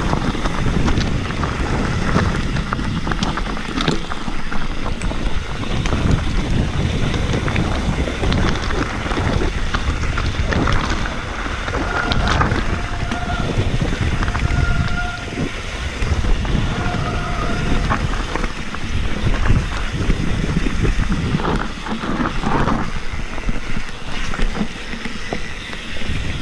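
Mountain bike descending a dirt trail at speed: steady wind buffeting on a helmet-mounted microphone, with the tyres and bike rattling and knocking over the rough ground. A few short squeals come about halfway through.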